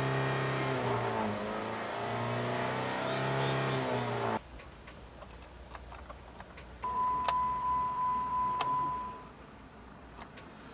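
Background music for about four seconds, then a steady electronic warning tone from the car's dashboard lasting about two and a half seconds, with two sharp clicks during it.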